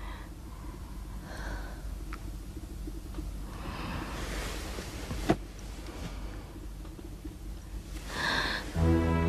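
Quiet room tone with a steady low hum and faint soft rustles, broken by one sharp click about five seconds in. Slow background music comes in near the end.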